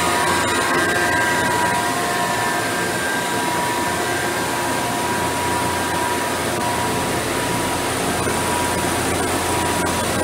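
Steady hum and hiss of running machinery on a machine-shop floor, with several faint steady whine tones over it.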